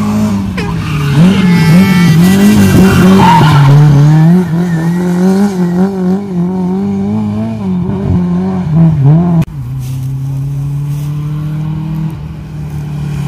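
Rally car engine revving hard, its note rising and falling again and again as the car slides through a gravel corner, with tyres scrabbling on loose gravel. About nine and a half seconds in, the sound cuts to a second car, a white Lada saloon, approaching at speed with a steadier engine note that slowly rises.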